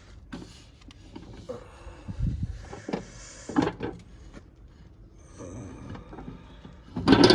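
Handling sounds of a dish being taken from a microwave: scattered knocks and scrapes, with a louder bump near the end.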